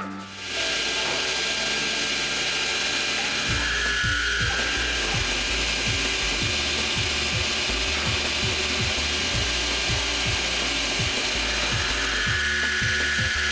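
Carbide end mill milling metal in a sliding head lathe: a steady cutting hiss over a fast run of clicks, with a whine that swells twice.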